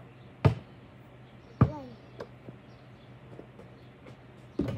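A basketball dropping from the hoop and bouncing on hard ground: two loud bounces in the first two seconds, the second ringing briefly, then quicker, lighter bounces as it settles. Near the end there is a close double knock as the ball is shot up against the rim and backboard.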